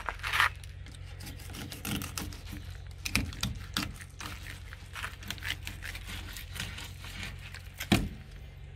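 Fish-filleting sounds: irregular taps, clicks and scrapes of a fillet knife and of fish being handled, with a sharper knock near the end, over a low steady hum.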